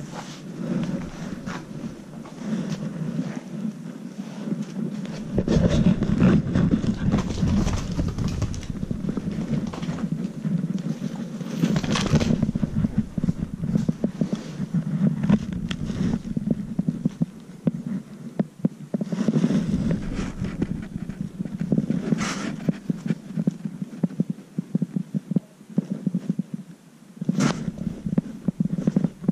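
Ginger-and-white kitten purring steadily close to the microphone, a low throbbing rumble, with a few brief knocks and rubs of handling.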